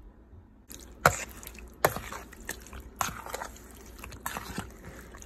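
Raw chicken chunks being mixed by hand in beaten egg, with wet sloshing and squishing and several sharper knocks about a second apart.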